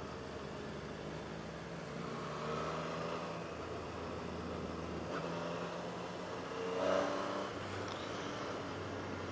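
Motorcycle engine running on the move, revs rising and falling, over steady wind noise; a brief louder rev comes about seven seconds in.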